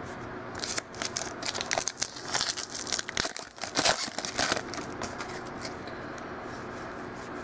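Foil wrapper of a football trading card pack being torn open and crinkled in the hands, a dense irregular crackle that starts about a second in and dies away a little past halfway.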